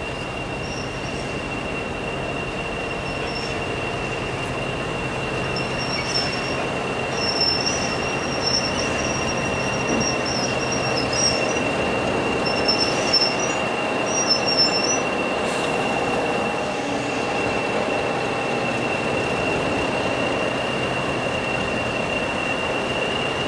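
English Electric Class 40 diesel locomotive moving slowly up the platform, its engine running with a steady high whistle throughout. Short high squeals, likely from wheels or brakes, come and go between about 7 and 15 seconds in.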